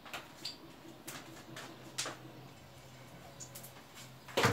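A few scattered sharp clicks and ticks, irregularly spaced, over quiet kitchen room tone with a faint low hum.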